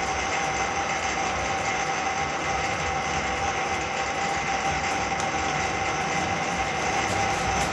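Electric drain-cleaning machine running steadily with a constant motor whine, snaking out a kitchen drain line clogged with grease.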